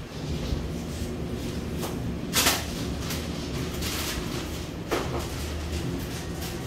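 Steady low hum of shop background noise, with a short, loud rattling clatter about two and a half seconds in and a softer knock near five seconds, like a case door or something handled on a counter.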